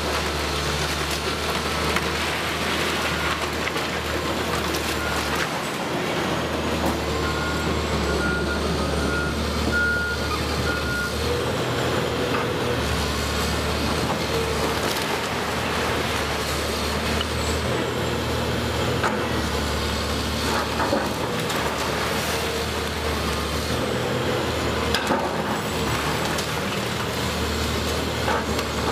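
Caterpillar 328C hydraulic excavator's diesel engine running under load, its note swelling and dropping as the arm works, with crunching of brick and timber as the bucket pulls at the walls. A reversing beeper sounds in a short run of beeps about a quarter of the way in.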